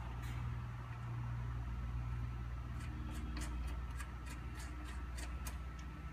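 Light clicks and small scrapes of hands fastening a ground wire onto a car battery terminal, finger tight, over a steady low hum.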